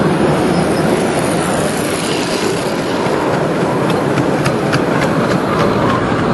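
Wagons of a 5-inch-gauge miniature train rolling past close by, a steady rumble of wheels on rail. In the second half a quick run of sharp wheel clicks stands out, about four a second.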